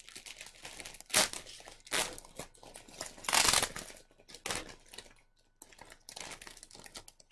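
Clear plastic bag crinkling and rustling as it is handled and pulled open by hand, in a string of irregular bursts, the loudest about three and a half seconds in.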